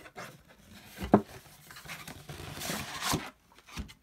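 Cardboard retail box of trading cards being handled and opened: a few sharp knocks and clicks, the loudest about a second in, and a brief tearing rustle of cardboard or wrapping about two and a half seconds in.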